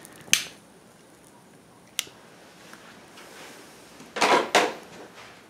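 A few sharp metallic clicks and clinks from handling a lit tinplate meths burner and the metal lighting rod on a tabletop: one click near the start, another about two seconds in, then a louder double clatter about four seconds in.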